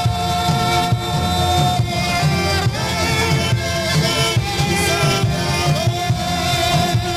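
Worship music played on an electronic keyboard, with a steady beat, a bass line and long sustained notes; one high note is held through the first two seconds.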